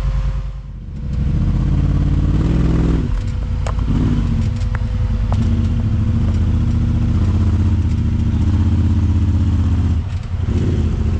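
Side-by-side UTV engine running and revving, with the revs rising about two to three seconds in and a few sharp knocks a little after.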